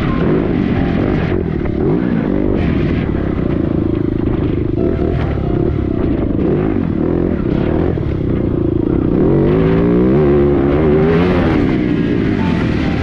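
Single-cylinder four-stroke engine of a TM EN300Fi enduro motorcycle under way off-road. Its pitch rises and falls with throttle and gear changes, with a run of quick revs up and down about nine to twelve seconds in.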